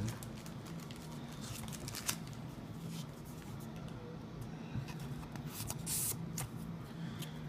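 Trading card being slid into a plastic card sleeve: soft rustling and scraping with a few light clicks, and a brief brushing swish about six seconds in.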